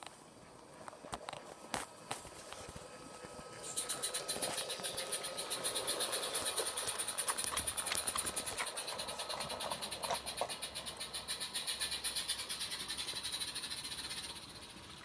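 Small-scale garden railway train running along the track. A fast, even clatter with hiss sets in about four seconds in and drops away near the end.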